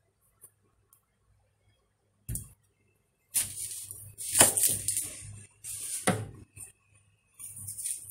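A kitchen knife cutting into and peeling a whole onion over a chopping board: one knock a little over two seconds in, then a series of scraping strokes from about three seconds in.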